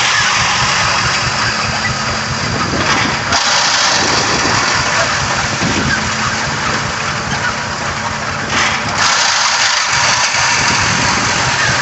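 Rock crusher crunching and rattling stone as it grinds rocks, driven by flat belt from a Rumley OilPull tractor whose engine runs steadily underneath. The noise swells briefly twice, about three seconds in and again near nine seconds.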